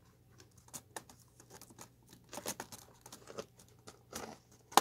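Hands fitting a Dell Inspiron 15-3521 laptop keyboard back into its frame: scattered light plastic clicks and rustles, with one sharp click at the very end.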